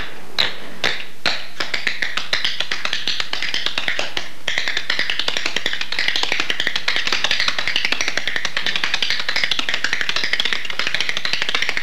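Solo tap dancing: metal-tipped tap shoes striking a hard floor, first a few single taps about half a second apart, then a fast, steady stream of taps from about two seconds in, with a brief pause near the middle.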